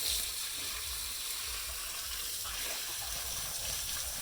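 Water running in a steady rush, as when a pig pen is being washed down.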